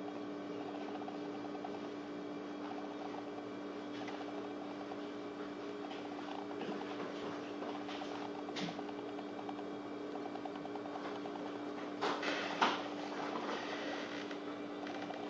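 Steady low hum in a small room, with a single click about eight and a half seconds in and a few brief rustles of the handheld camera being moved around twelve seconds in.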